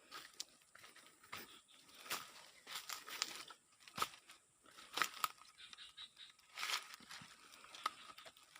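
Irregular rustling and crackling, with sharp snaps every second or so, like dry grass and brush being pushed through and trodden on.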